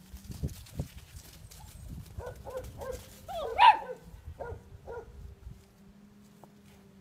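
Kelpie pups yapping: a quick run of about seven short, high barks, the loudest just past halfway. A few low thumps and scuffles come in the first second.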